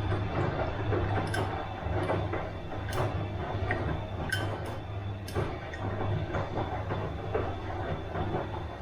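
Bosch washing machine running a wash cycle: a steady low motor hum under the rumble of the turning drum, with soft irregular knocks and swishes about once a second as the load tumbles.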